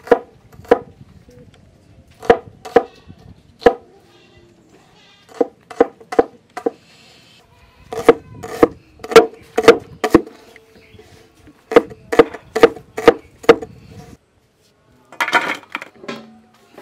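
Steel cleaver chopping red onions on a wooden board: sharp knocks in short runs, about two a second, with a wooden ring. Near the end, a short scrape as the chopped onion is pushed off the board into a steel plate.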